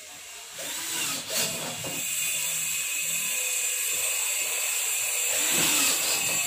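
A handheld power tool motor running steadily for several seconds, a whine over a high hiss, starting about half a second in.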